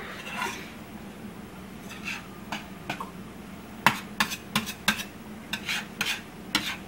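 Metal fork stirring scrambled egg yolks in a stainless steel skillet: irregular clicks and scrapes of the tines on the pan, starting about two seconds in.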